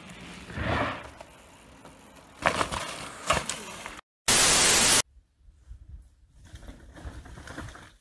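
Mountain bike on a dirt trail with a run of sharp clattering knocks a few seconds in, then a short burst of loud, even static hiss lasting under a second.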